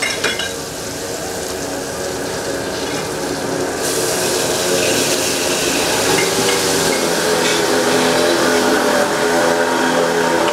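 Freshly ground spice paste frying in oil in a wok over a gas burner: a steady sizzle that grows louder and brighter about four seconds in.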